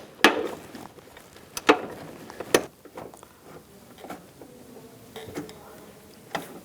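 A few sharp clicks and knocks of hand tools against the door-hinge nuts and bolts as they are being removed. The three loudest come in the first three seconds, followed by fainter scattered ticks.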